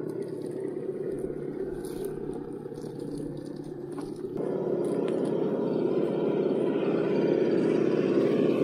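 6x6 Unimog truck driving a rough dirt trail, its engine running steadily; the sound gets louder about four seconds in.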